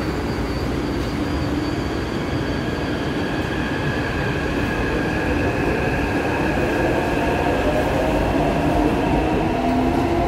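Taipei Metro C381 train pulling out of the station: a steady rolling rumble, with the traction motors' whine climbing in pitch over the second half as the train accelerates.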